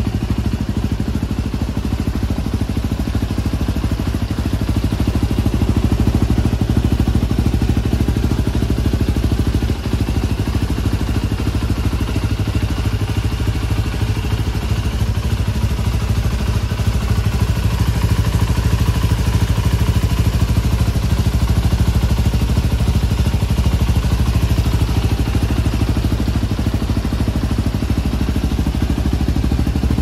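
Yamaha WR250R's 250 cc single-cylinder four-stroke engine idling steadily, through a Power Box exhaust header and Yoshimura silencer.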